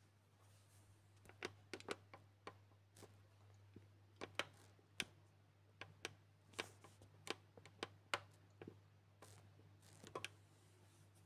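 Fingers working a small piece of plasticine against a modelling board, giving faint, irregular light clicks and taps, about twenty of them, over a steady low hum.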